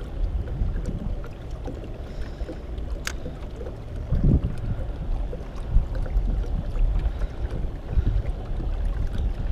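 Wind rumbling on the microphone and water moving against a fishing kayak's hull, with a few dull knocks and one sharp click about three seconds in.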